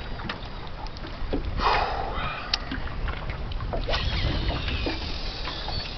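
Wind rumbling on the microphone and small waves slapping against the hull of a small aluminium boat, with scattered light knocks and a brief swell of noise a couple of seconds in.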